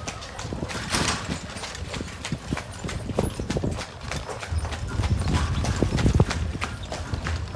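A horse's hooves clip-clopping on a hard street, with a low rumble that swells from about halfway through.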